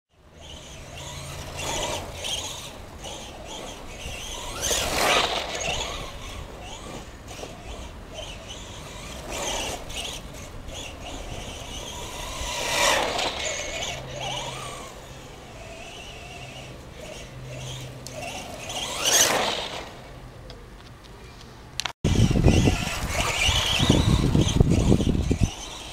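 Schumacher CAT SX2 Pro electric RC buggy with a 10.5-turn motor whining as it speeds past several times, each pass rising sharply in pitch and then falling away. After a cut near the end, a louder low rumble.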